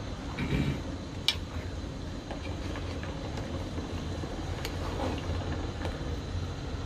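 Metal ladle stirring chicken in oil in an aluminium pot, with a few sharp clicks of the ladle against the pot, the first about a second in, over a steady low rumble.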